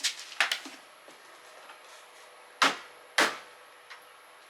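Sharp clicks and knocks from fitting the wheels onto a Kärcher 2100 psi electric pressure washer, where they snap on: two near the start, then two louder ones about half a second apart past the midpoint.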